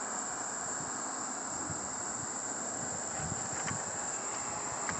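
Steady high-pitched chirring of insects, unbroken throughout, over a low even background hiss.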